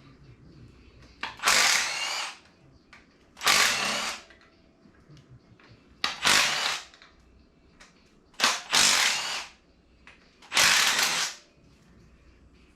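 Handheld power tool, of the drill or impact-driver kind, run in five short bursts of under a second each, about two seconds apart, as fasteners are run out.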